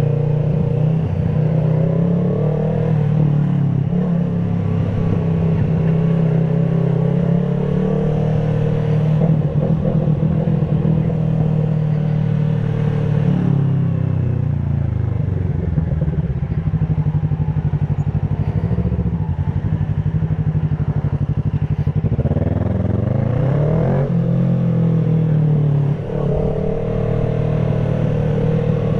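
Motorcycle engine and exhaust heard from the saddle while riding, running at a steady pitch that shifts with the throttle. The revs fall away about fourteen seconds in, climb steeply again around twenty-three seconds, and dip briefly just after, like a gear change.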